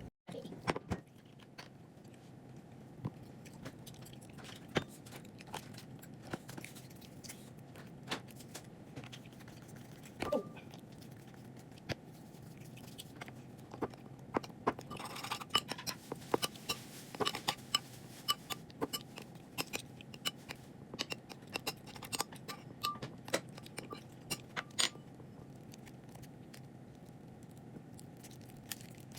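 Scattered small clicks, crinkles and sticky pops from hands working aquamarine modeling clay into slime to make butter slime, over a faint steady hum. The clicks are busiest in the second half.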